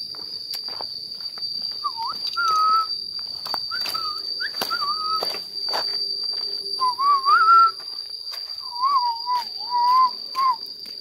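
A man whistling a wavering tune in four short phrases, over a steady high insect drone, with a few sharp clicks.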